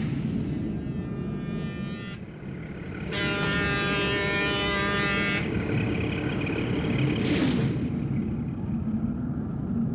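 A ship's horn blows for about two seconds a few seconds in, over a steady low rumble. Fainter horn-like tones come before and after it, and a short falling whistle sounds near the end.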